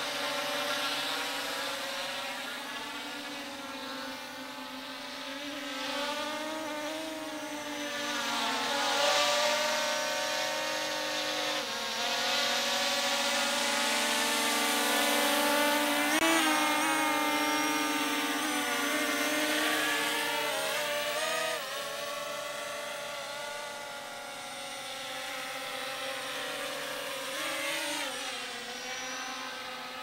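Drone propellers buzzing in a flyby, the pitch wavering up and down as the motors change speed. It swells to its loudest in the middle and eases off near the end.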